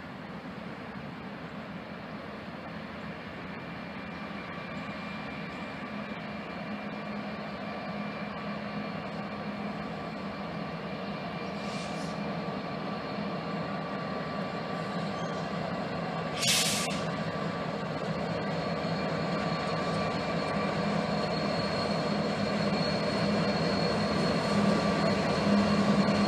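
Norfolk Southern diesel locomotives approaching, their engine drone growing steadily louder as the train nears. About two-thirds of the way through there is a short, sharp hiss.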